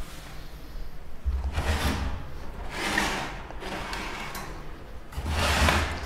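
Handling noises of a small wire budgie cage being reached into: swells of rustling and scraping with a low rumble, about a second and a half in, again around three seconds, and near the end.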